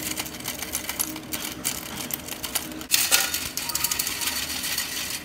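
Hand-crank stainless steel flour sifter being cranked, sifting flour through its mesh with a rapid clicking, scraping rasp that gets louder about three seconds in.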